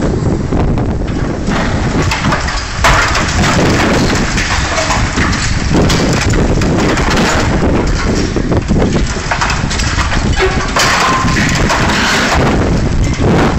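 Liebherr 944 demolition excavator working under load against a steel girder: engine and hydraulics straining, with crunching and scraping of metal and debris. A sharper, louder burst of grinding comes about three seconds in, and another near the end.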